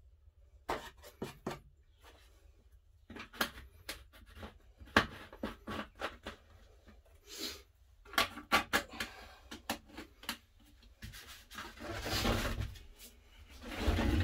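Hands handling a plastic fuel canister and its screw caps: a string of irregular clicks, taps and knocks of plastic, with a longer scraping rustle near the end.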